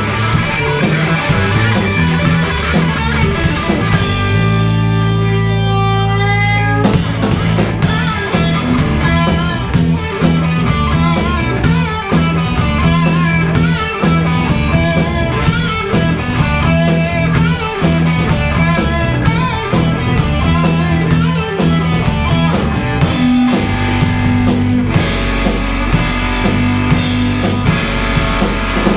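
Rock band playing live: electric guitars, bass guitar and drum kit. About four seconds in, the drums stop for roughly three seconds while a held chord rings, then the full band comes back in.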